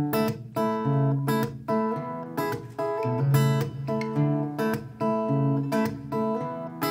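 Acoustic guitar strumming chords in a steady rhythm, with a sustained low accompaniment underneath: the instrumental intro of a live acoustic band song, before the vocals come in.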